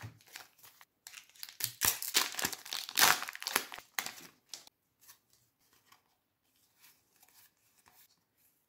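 Foil wrapper of a Pokémon Trading Card Game booster pack crinkling loudly as it is opened, loudest about three seconds in. Then only faint rustles from the cards being handled.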